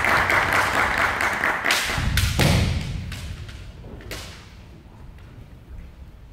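Kendo bout: bamboo shinai clacking together and stamping feet thudding on a wooden floor, loud in the first couple of seconds with a heavy thud about two and a half seconds in, then a string of lighter knocks as the fencers circle.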